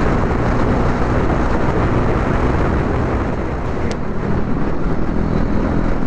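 KTM motorcycle cruising at highway speed: a steady engine drone under heavy wind rush on the microphone.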